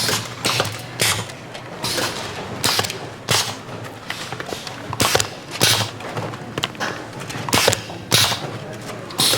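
Factory assembly machine on a power bank production line, working with about ten sharp mechanical clacks at uneven intervals over a steady hum of the shop floor.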